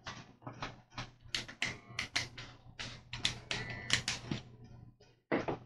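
Plastic parts of a Pamapic portable K-cup coffee maker clicking and tapping as they are handled and twisted apart by hand: a run of irregular short clicks, about three a second, stopping briefly near the end.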